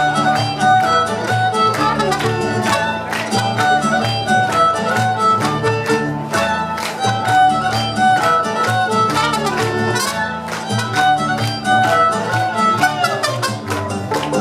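Mariachi band playing an instrumental passage: violins carry the melody over a steady strummed rhythm and a moving bass line.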